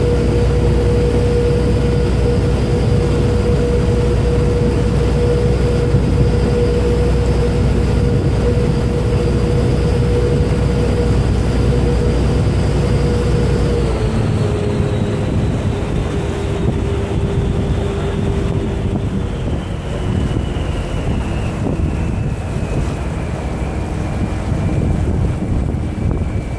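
Vaporetto waterbus diesel engine running with a steady droning hum and a deep rumble. About halfway through, the engine note steps down and the rumble eases, and the pitch falls again a few seconds later.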